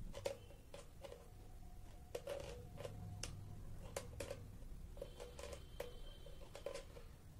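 Two pairs of pliers gripping and tightening a nut and bolt on a ceiling fan's metal downrod: a string of faint, irregular metallic clicks.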